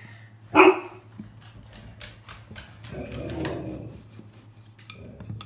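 Wooden rolling pin bashing down once on a block of hard, freezer-chilled quiche pastry with a sharp knock about half a second in, then rolling across it with a rumbling sound around the middle.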